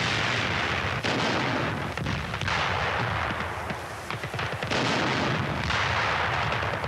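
Artillery fire from flak and assault guns: several heavy gun reports and shell bursts about one to two seconds apart, each trailing off in a long rumble.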